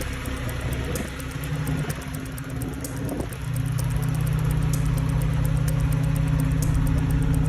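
Vehicle engine idling with a steady low hum, growing louder and steadier about three seconds in.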